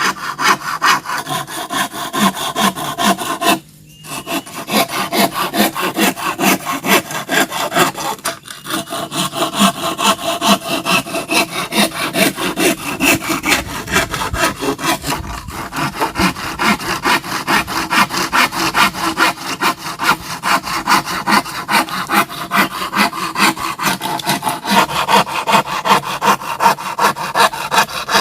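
Hand saw cutting bamboo with fast, even back-and-forth strokes, about three a second, pausing briefly about four seconds in.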